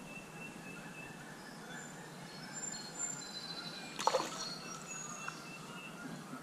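A rainbow trout splashing once at the creek's surface about four seconds in, the loudest sound here. Behind it, birds sing high, thin notes over a steady outdoor hiss.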